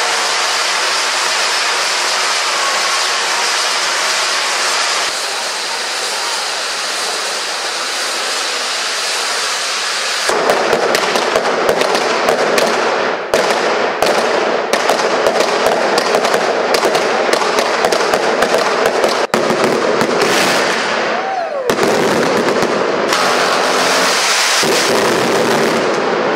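Firecrackers at a festival: a dense, steady hiss for about ten seconds, then a rapid string of sharp cracks going off one after another, with a brief falling whistle-like glide among them.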